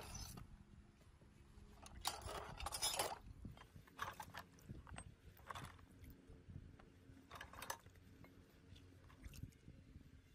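Small steel parts being lifted out of a basin of water and laid on a cloth: a splash of water about two seconds in, then a few short bursts of dripping and soft taps as the parts are set down.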